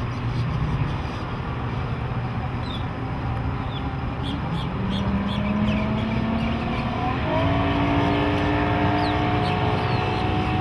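Johnson 150 V6 two-stroke outboard running just after starting, at a low steady idle at first; about two-thirds of the way through its pitch steps up and then climbs slowly, as the engine speed rises.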